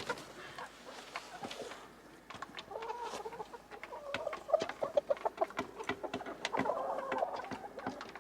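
Hens clucking in a chicken coop, with scattered short clicks and rustles throughout.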